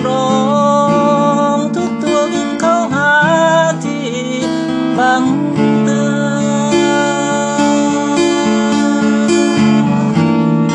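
Acoustic guitar strummed in steady chords, with a man singing a slow melody over it, the voice clearest in the first half.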